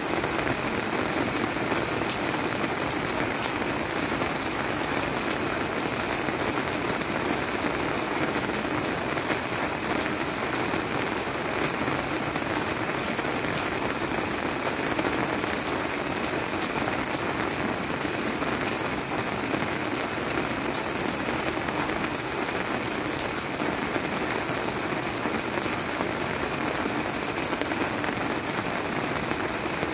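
Steady monsoon-season rain falling on leafy plants: an even hiss with individual drop hits ticking through it.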